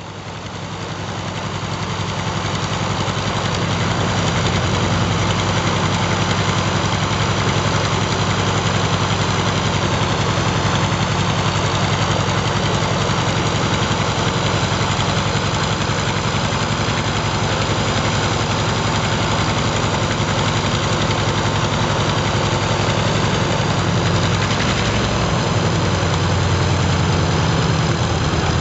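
Mitsubishi A6M5 Zero's Nakajima Sakae 14-cylinder radial engine running steadily on the ground with the propeller turning. It fades in over the first few seconds.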